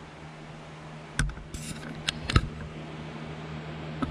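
A few sharp clicks and knocks of handling over a steady low hum, the loudest knock about two and a half seconds in; the chainsaw is not running.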